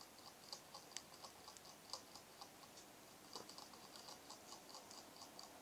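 Hamster drinking from a cage water bottle: faint, irregular tick-tick clicks of its licks on the metal spout, a few a second.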